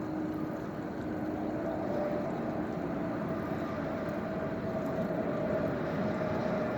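A motor droning steadily with a faint hum whose pitch drifts slowly, over a wash of wind and water noise.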